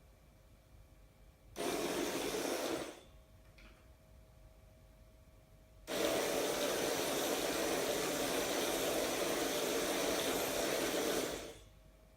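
RC crawler's electric drive motor and gears running in two runs that switch on and off abruptly: a short one of about a second and a half, then a longer one of about five and a half seconds.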